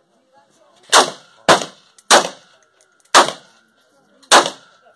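Five gunshots from a firearm fired in quick succession, half a second to a second apart, each sharp crack followed by a short echo.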